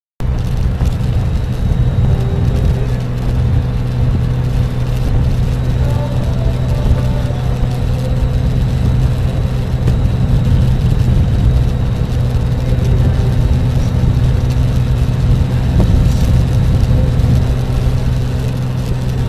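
Motorcycle trike cruising on a highway, heard from the passenger seat: a steady engine hum under heavy wind and road noise, cutting in suddenly at the start.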